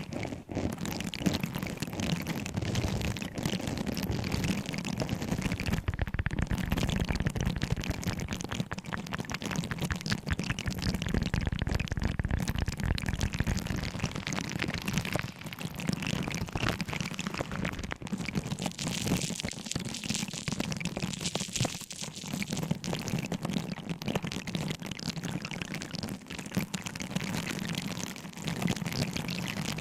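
Objects handled close to the microphone for ASMR, making a continuous dense crackle of many small clicks and rustles.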